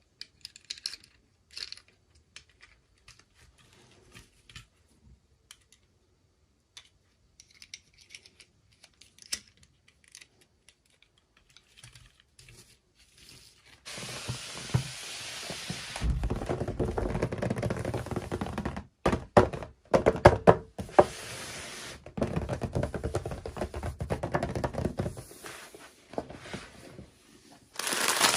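Toy packaging being handled and opened by hand: scattered light plastic clicks and taps, then from about halfway a long stretch of dense rustling and crinkling with sharp knocks and thuds.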